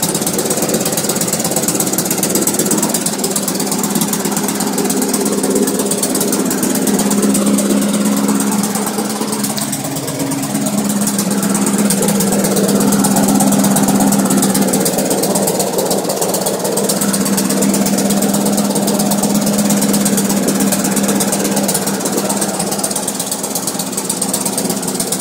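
Briggs & Stratton 500 series 158cc single-cylinder push-mower engine running steadily.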